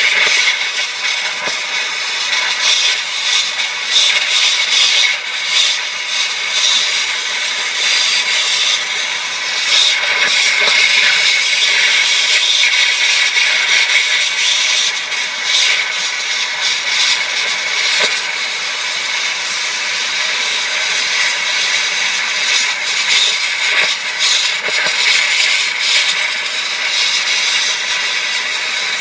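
Oxyacetylene torch flame hissing steadily as it heats a copper heat-exchanger tube for brazing, with scattered brief crackles.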